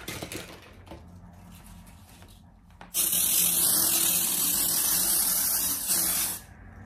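Fine-mist spray bottle hissing in one continuous spray for about three and a half seconds, then cutting off suddenly, as micellar water is misted over a powdered face in place of a setting spray. A short knock comes at the start.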